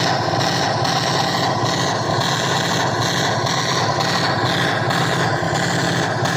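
Machine-gun fire sound effect for a .50 caliber mount, played by a museum exhibit rather than real firing: one loud, unbroken rattle with no single shots standing out.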